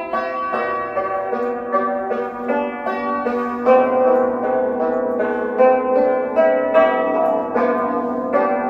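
Yangqin (Chinese hammered dulcimer) playing a flowing melody. Each hammered note strikes clearly and rings on under the next.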